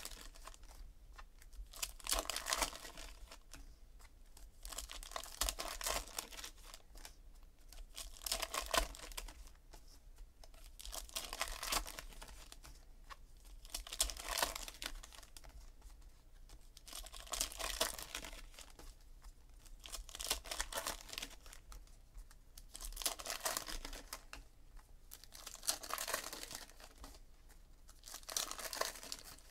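Foil wrappers of 2017 Panini Elite Football card packs being torn open and crinkled one after another, a burst of tearing about every three seconds.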